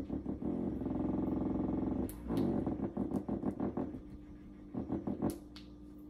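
Wand massager's vibrating motor buzzing as it is switched through its modes. It pulses at first, settles into a steady buzz about half a second in, turns to a wavering buzz after about two seconds, then drops to a lower hum with a few short pulses near the end.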